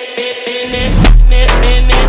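Background music: an electronic track with repeated pitched notes and sharp percussive hits, where a heavy deep bass and drums come in just under a second in and the track gets louder.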